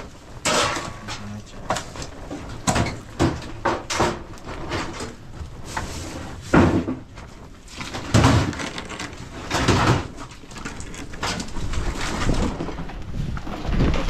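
A series of irregular knocks and thumps, the loudest a little past the middle of the stretch.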